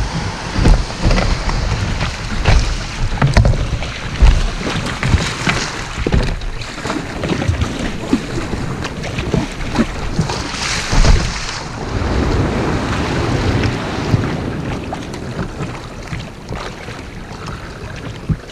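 Kayak paddle strokes splashing in choppy shallow water, mixed with gusts of wind buffeting the microphone.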